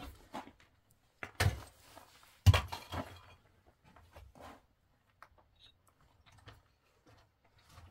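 Two loud knocks about a second apart, each with a brief clatter after it, then scattered faint clicks and taps.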